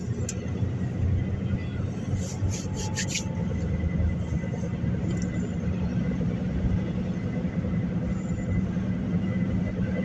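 Steady low road and engine rumble inside the cabin of a moving car, with a quick run of about five sharp clicks a little over two seconds in.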